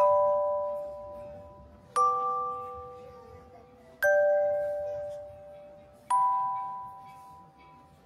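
Background music: a soft chime-like chord struck four times, about every two seconds, each ringing out and fading before the next.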